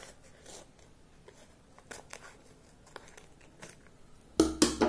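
Scissors snipping through paper, a few faint crisp snips, then three loud sharp knocks near the end.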